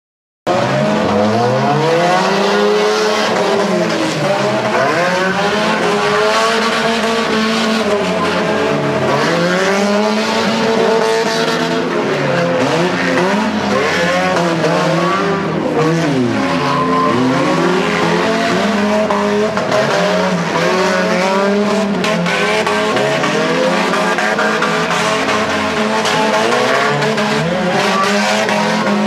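Several demolition derby cars racing on a dirt figure-8 track. Many engines run together, their pitch rising and falling over and over as the cars back off and accelerate again. The sound starts suddenly about half a second in.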